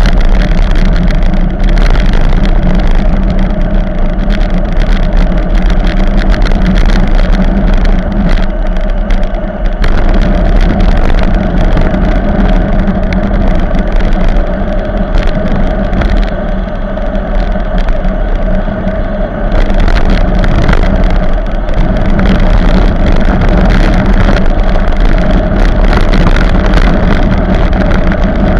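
Loud, steady wind rush on the microphone of a bicycle-mounted camera during a fast downhill run, mixed with road rumble and knocks as the bike runs over rough, cracked bitumen. It eases briefly a few times.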